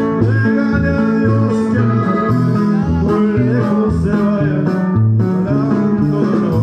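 Norteño band playing an instrumental passage: accordion melody over plucked bajo sexto strings and a bass that alternates steadily between two notes.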